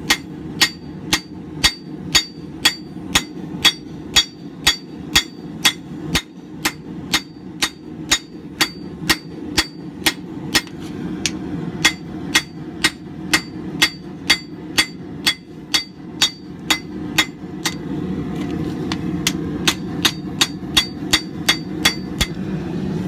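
Rounding hammer striking a red-hot mild steel flat bar on an anvil in a steady rhythm of about two blows a second, each with a bright ring, spreading the metal out to form an axe eye. A steady low hum runs underneath and grows louder near the end.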